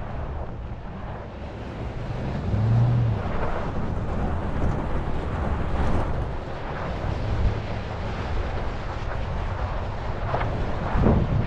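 Truck driving on a sandy desert dirt track: engine running with tyre and road rumble, and wind buffeting the microphone mounted outside the vehicle.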